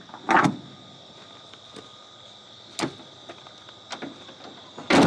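Gear being handled at a pickup truck: a few sharp knocks and clunks, the loudest shortly after the start and another at the very end.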